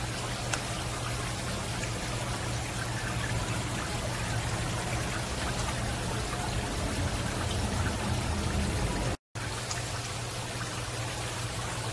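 Aquarium water bubbling and trickling steadily from the tank's circulation, with a low steady hum underneath. The sound breaks off for an instant about nine seconds in.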